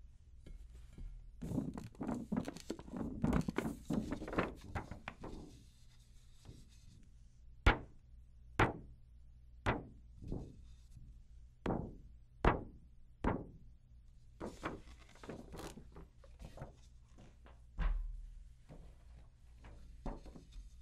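A 10-inch tom's metal hoop and clear plastic drumhead being handled and lifted off the shell. First comes a stretch of clicking and rustling, then a run of about seven separate knocks, each with a short ring, roughly a second apart. Another patch of handling follows, with a low thump about three-quarters of the way through.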